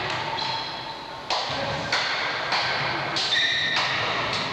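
A basketball being dribbled on a sports hall floor, a steady bounce about every 0.6 s from just over a second in, echoing in the hall. Short sneaker squeaks on the floor come in between.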